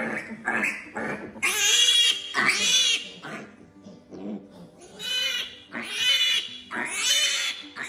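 Piglet squealing in distress while being castrated: quick short grunting cries at first, then about five loud, high, drawn-out squeals, each lasting under a second.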